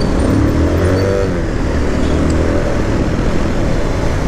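Motor vehicle running along the road: a steady, loud engine and road rumble with a faintly wavering engine note.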